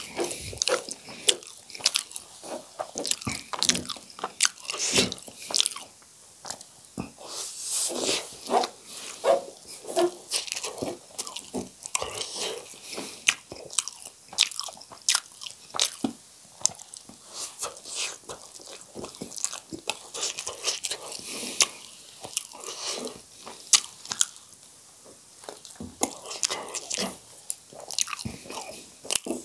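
Close-miked chewing and biting of spicy instant noodles and spiced boiled potatoes, with many irregular wet mouth clicks and smacks.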